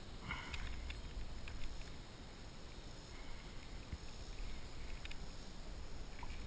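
Steady low rumble of wind and water noise picked up by a kayak-mounted GoPro, with a few faint scattered clicks and knocks.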